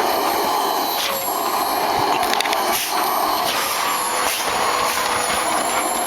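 Vacuum cleaner running steadily with a high whine, its sound changing briefly a few times as the nozzle is worked over a golden retriever's coat.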